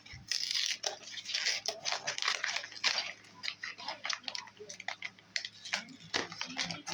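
A mystery box's cardboard and plastic packaging being opened by hand: a dense, irregular run of crackling, crinkling and rustling with sharp clicks.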